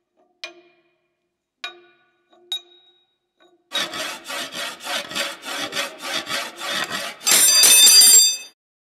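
Three short knocks, then a file or saw rasping back and forth at the cell window's bars, about three strokes a second. The strokes end in a louder scrape with a ringing edge that cuts off suddenly.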